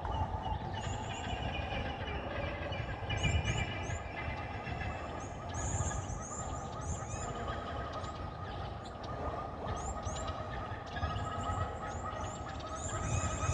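Sci-fi alien-jungle ambience: layered creature calls, with clusters of short high chirps and a steady trilling tone that comes in about halfway, over a low rumbling bed.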